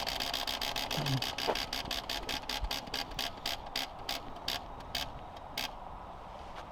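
Spinning prize wheel ticking as its pointer flicks past the pegs. The clicks start fast and spread out as the wheel slows, dying away about five and a half seconds in as it comes to rest.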